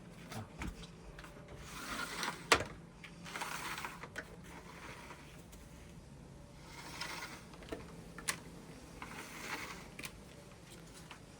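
Scattered rustling, scraping and clicking of things being handled, with one sharp click about two and a half seconds in; no engine is running.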